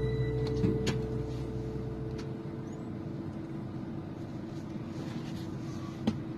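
Steady vehicle noise inside a van's cabin, with a few light clicks, while background music dies away over the first two seconds.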